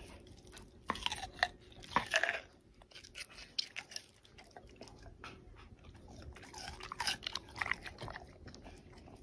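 An animal chewing and crunching food. Irregular crunches come in clusters about a second in, around two seconds, and again around seven to eight seconds, with scattered single crunches between.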